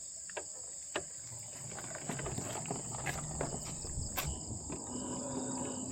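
Insects trilling steadily at a high pitch, with scattered sharp clicks and a low rumble coming in about two seconds in.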